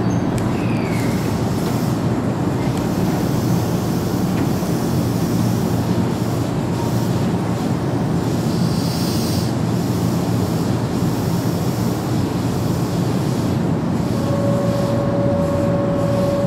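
Keihan 7000 series electric commuter train standing at a platform with its doors open, its onboard equipment giving a steady hum under an even noise. A steady high tone comes in about two seconds before the end.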